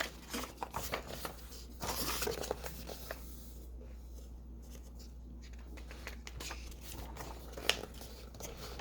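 Paper rustling and crinkling as picture-book pages are handled and turned, loudest in the first few seconds, with a single click near the end, over a steady low hum.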